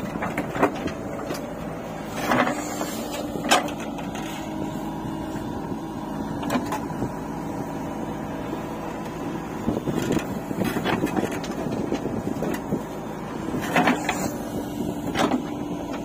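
JCB 3DX backhoe loader's diesel engine running steadily under hydraulic load as the backhoe arm swings and digs. Sharp clanks and knocks come from the bucket and the soil it handles, about seven times, loudest a few seconds in and near the end.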